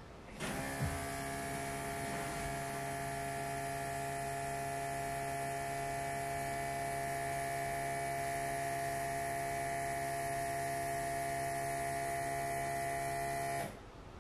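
Electric brake vacuum pump switching on about half a second in and running with a steady hum, then shutting off suddenly near the end. It is pulling the power brake booster back up to vacuum after the brake pedal has been pressed and released.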